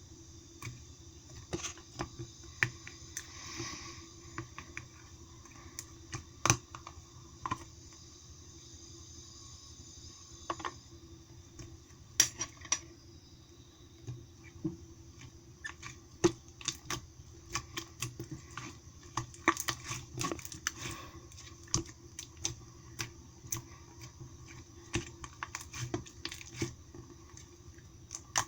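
Soft-clay slime being pressed and worked by hand, making irregular sharp clicks at an uneven pace.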